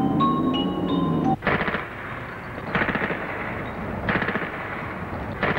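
Mallet-percussion music for about the first second and a half, then four short bursts of machine-gun fire, one about every second and a quarter.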